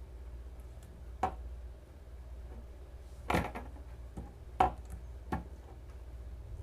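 Four sharp clicks and knocks from a butterfly knife being handled, spread over a few seconds, the second the loudest, over a low steady hum.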